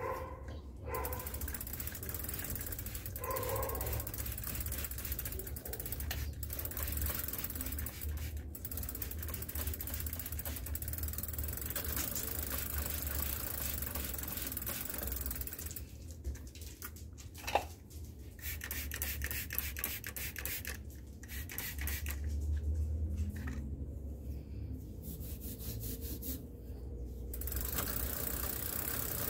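Mountain bike's rear freehub ratcheting in fast, even clicks as the pedal is turned backward by hand, running the chain over the cassette; the clicking stops and starts a few times, with one sharp tap partway through.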